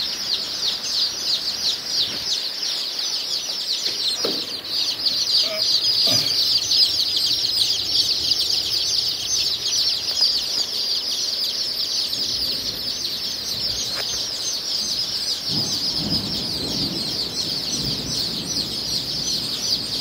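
A large flock of day-old chicks peeping without pause, a dense chorus of many overlapping short, high, falling peeps.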